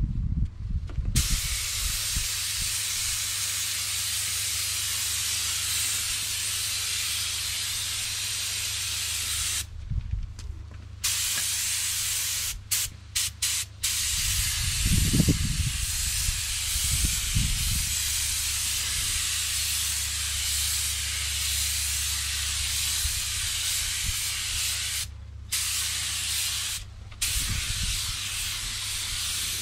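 Compressed-air spray gun hissing in long passes over a car bumper repair. The trigger is released a few times: a break around a third of the way in, a few short stutters just after, and two brief pauses near the end.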